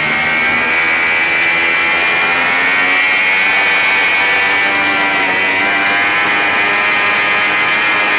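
Sport bike engine pulling hard at high revs in third gear as the bike accelerates, its pitch climbing slightly and then holding steady, with wind rush over the camera.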